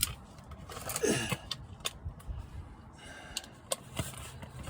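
Handling and movement noise: scattered clicks and light knocks, with a short falling creak about a second in.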